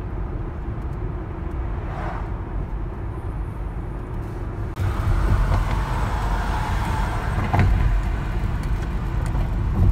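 Road noise of a car driving, heard inside the cabin: a steady low rumble of engine and tyres that steps up in level about five seconds in.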